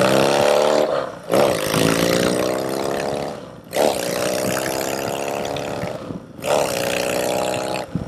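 Yamaha XS650 chopper's parallel-twin engine accelerating hard, its pitch climbing in each gear. Three quick upshifts, about one, three and a half and six seconds in, each drop the revs briefly before they climb again.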